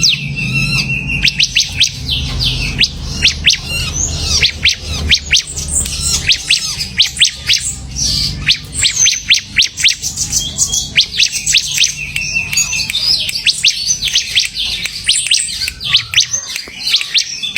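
Ciblek (bar-winged prinia) singing rapidly, a dense run of sharp high chirps and quick trills. A low steady hum sits underneath and fades out about halfway through.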